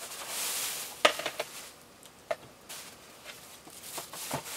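A thin plastic bag rustling and crinkling as it is handled. A sharp click comes about a second in, with a few lighter clicks and taps after it and again near the end.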